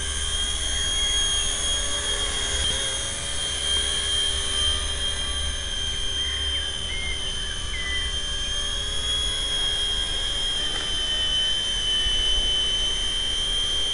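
Carson EC145 DRF fixed-pitch micro RC helicopter hovering low, its electric motor and rotors giving a steady high whine that wavers slightly in pitch as the throttle shifts.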